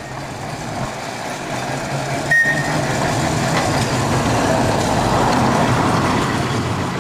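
Manx Electric Railway tram car passing close by: a steady low hum under a rumble of wheels on the rails that grows louder as it goes past. A short click comes about two and a half seconds in.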